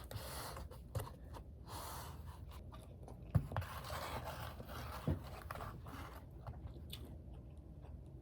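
Close handling noises: scraping and rustling, with three light knocks, the loudest about three and a half seconds in.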